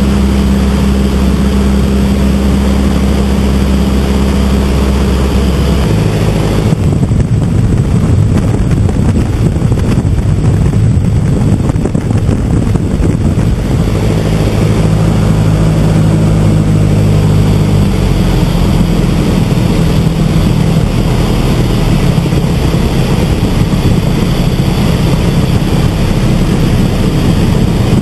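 Stampe SV4 biplane's inverted four-cylinder Renault engine and propeller running in flight, heard from the open cockpit with rushing wind. The engine note shifts about six seconds in.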